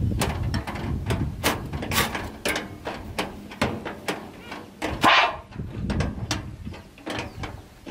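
Hand tools knocking, clicking and scraping on the sheet-metal drum housing of a rice threshing machine under repair, with a longer scrape about five seconds in.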